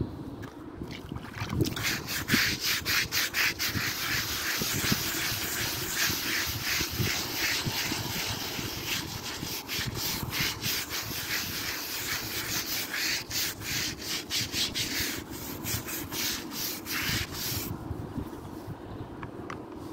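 Hand scrub brush with blue plastic bristles scrubbed rapidly back and forth over a wet bronze plaque, in quick repeated strokes that stop near the end. The scrubbing works off a salt, vinegar and flour cleaning paste from the tarnished bronze.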